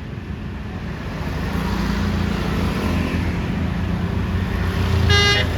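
A tour bus approaching, its engine and road noise growing louder. About five seconds in, its multi-tone 'telolet' musical air horn starts to play.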